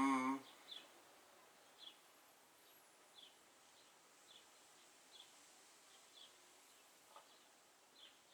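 A held music tone stops within the first half-second. Then a bird gives faint, short, high chirps that dip slightly in pitch, about once a second.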